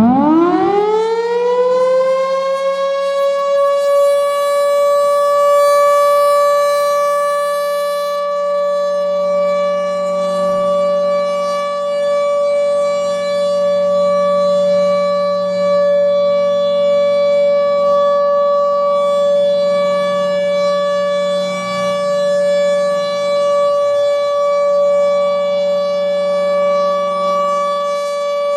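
Federal Signal Thunderbolt 1000 outdoor warning siren sounding its alert signal: it winds up quickly in pitch in the first second or two, then holds a loud, steady high tone.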